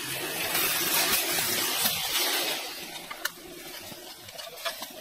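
Wide rice noodles and greens sizzling in a wok on a camp stove while a metal ladle stirs them. The sizzle is loudest for the first couple of seconds, then eases, with a few sharp clicks of the ladle against the wok.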